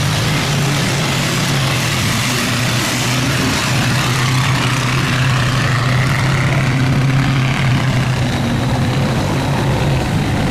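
Boat engine running steadily with an even low hum and a noisy wash on top.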